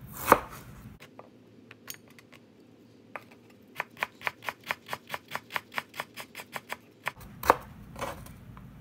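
Cleaver knife cutting fresh ginger on a bamboo cutting board. A few single cuts are followed by a quick, even run of knocks on the board, about five a second, from about four to seven seconds in, as the slices are cut into thin strips. Two louder knocks come near the end.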